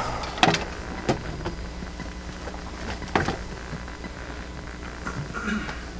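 A few sharp knocks, about half a second, one second and three seconds in, over a steady low hum of room noise.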